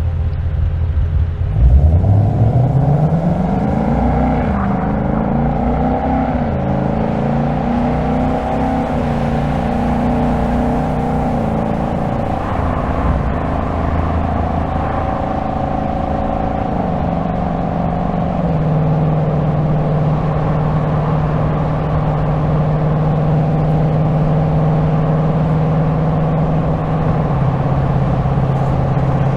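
2025 Ford Mustang GT's 5.0-litre V8 pulls away from low revs about two seconds in. Its pitch rises through quick automatic upshifts, then settles into a steady cruise, dropping a step twice more as the gearbox shifts up.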